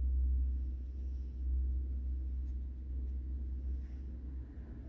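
Rustling and rubbing noise as a Yorkshire terrier's fur brushes right against the phone's microphone, over a steady low rumble of handling noise, with a few faint ticks.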